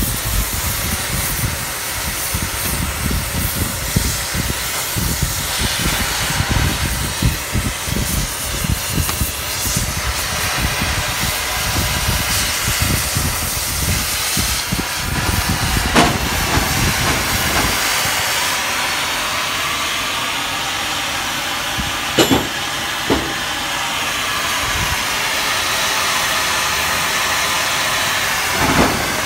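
Oxy-fuel cutting torch on a profile-cutting machine hissing steadily as it burns through steel plate, with a rough crackle of spatter for the first two-thirds that then settles into a smoother hiss. A few sharp metal clinks in the second half.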